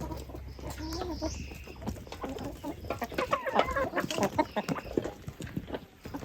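Domestic chickens clucking and calling in a run of short, pitched clucks that grow busiest in the middle.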